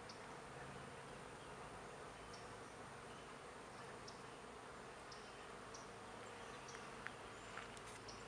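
Honeybees buzzing around their hives as a faint, steady drone, with a few short faint clicks near the end.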